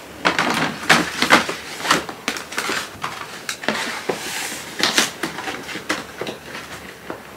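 A cardboard gift box being handled as its lid is fitted on: a string of light knocks and taps, with cardboard scraping and rustling.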